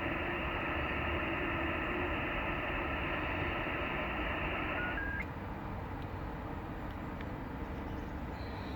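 Ham radio transceiver receiving FT8 digital signals on the 21 MHz band: many steady tones sound at once over band hiss. They stop together about five seconds in, at the end of the FT8 transmit period, leaving only receiver hiss.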